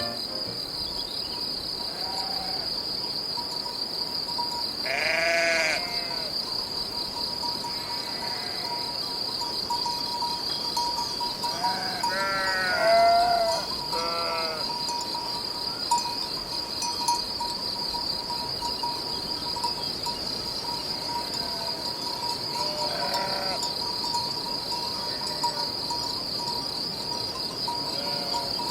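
Sheep or goats bleating now and then, several separate calls with a cluster in the middle, over a steady high-pitched insect chorus.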